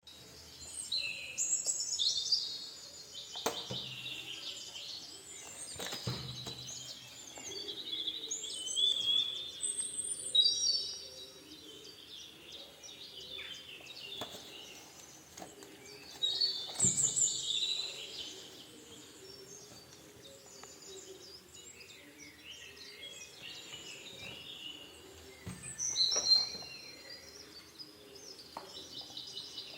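Small birds chirping and twittering throughout, with a few sharp clicks or knocks now and then.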